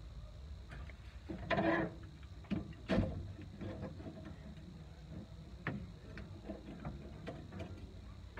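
Scattered light clicks and taps of hand tools being handled against a sheet-metal floor pan while it is measured and marked. A louder scraping rattle comes about a second and a half in, and a sharp knock about three seconds in.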